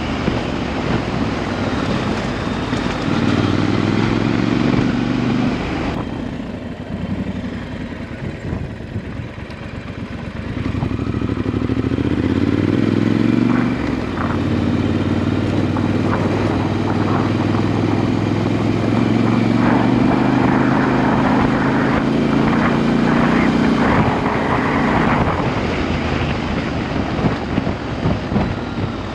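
Motorcycle engine running as the bike rides a dirt road, its pitch stepping down a few times, with scattered knocks from the rough surface in the second half.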